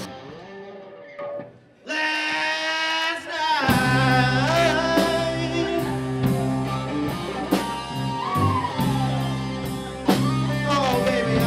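Rock band playing with a singing voice: soft for the first couple of seconds, then guitar comes in, and drums and bass join about four seconds in with a steady beat under the sung melody.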